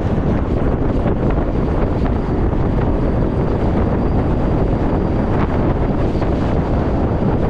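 Steady wind noise buffeting the microphone of a moving motorcycle rider, a dense rush heaviest in the lows, with a faint high steady whine underneath.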